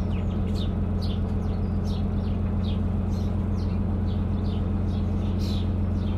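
A narrowboat's engine running steadily under way, a constant low drone. Birds chirp and sing in quick short notes over it.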